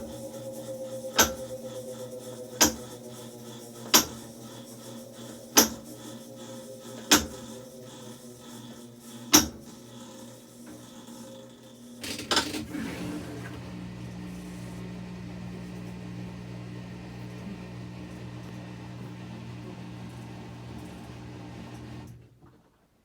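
Whirlpool top-loading washing machine at the end of its spin: the motor's tone falls slowly as the drum winds down, with six sharp knocks spaced further apart as it slows. About twelve seconds in there is a clunk, then a steady low hum that cuts off suddenly about a second before the end.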